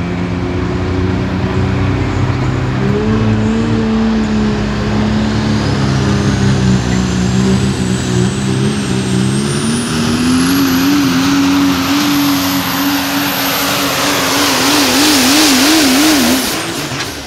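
Super Stock Diesel 4wd Dodge Ram pulling truck's turbocharged diesel engine running hard at full throttle under pulling load, with a high turbo whine that rises slowly over several seconds and then holds. Near the end the engine note wavers, then the sound drops away sharply.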